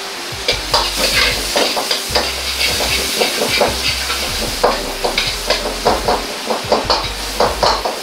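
Minced garlic sizzling in hot oil in a Chinese wok, with a steel ladle stirring it and scraping and clacking against the wok a few times a second.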